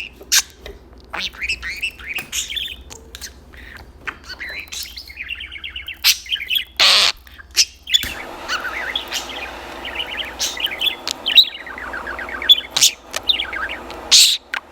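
Budgerigar chattering and warbling: a busy stream of short chirps and rapid warbled notes, broken by a few sharp, louder calls.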